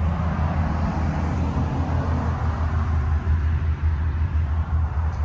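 A steady, low engine rumble, like a vehicle idling close by.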